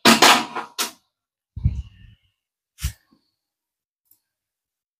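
A few short handling noises on a workbench: a loud rustling clatter in the first second, a softer shuffle, then a single knock about three seconds in, as multimeter probes and an oven heating element are put down.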